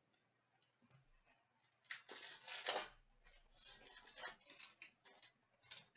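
Hockey card pack wrapper crinkling and cards being handled: short bursts of rustling, starting about two seconds in after near silence.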